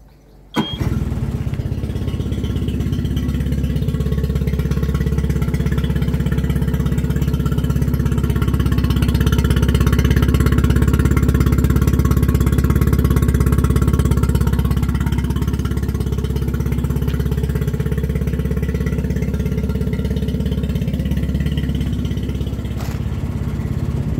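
Boat outboard motor started on the key, catching at once about half a second in, then running steadily out of the water on hose-fed flushing muffs. It runs a little louder through the middle before settling back.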